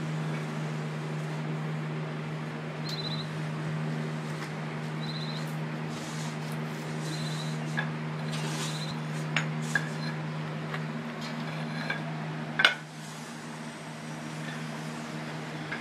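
A motor hums steadily throughout. Short high chirps come four times in the first half, and a sharp knock about twelve and a half seconds in is the loudest sound.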